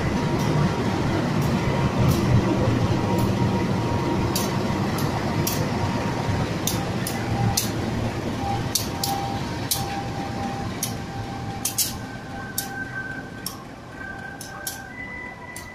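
A pair of General Electric diesel-electric locomotives, CC 206 and CC 201, running light together. The low engine rumble is strongest at first and fades steadily as they move away, with sharp clicks scattered throughout.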